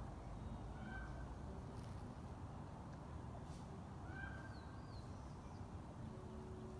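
Faint bird calls: two short pitched calls about three seconds apart, the second followed at once by a quick rising-and-falling whistle, over a low steady background rumble.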